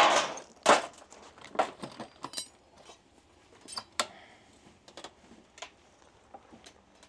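A box of small metal parts and scrap being opened and rummaged through by hand: a loud rustling scrape right at the start, then scattered knocks and clinks.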